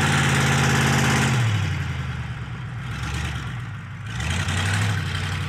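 Ford pickup truck's engine revving hard while it strains to tow a car. It eases off about a second and a half in and picks up again about four seconds in. The truck's damaged transmission only lets it creep with the throttle near the floor.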